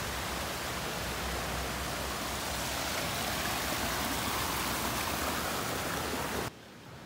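Water rushing and splashing over rocks in a stone-lined stream channel, a steady even rush that cuts off abruptly near the end.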